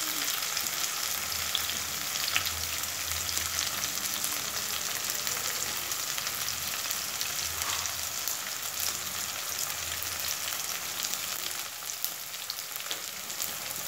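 Chopped onion, garlic, cumin seeds and green chillies sizzling in hot oil in a pan: a steady hiss with scattered crackles.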